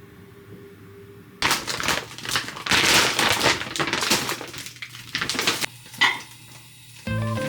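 Close handling noise: rapid clattering and crunching for about four seconds, then a single sharp knock a little after that. Background music starts near the end.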